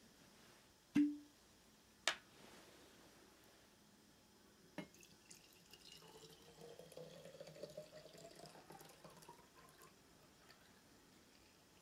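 Sake poured from a glass bottle into a small ceramic flask, a soft gurgle whose pitch rises steadily for about four seconds as the flask fills. Before the pour, three sharp clinks, the first with a short ring.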